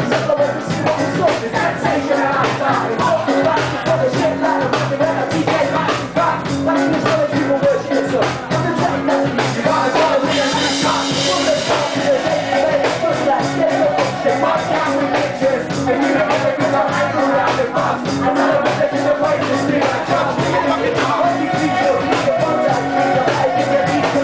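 Ska-punk band playing live, with drums and a male vocalist singing into a handheld microphone.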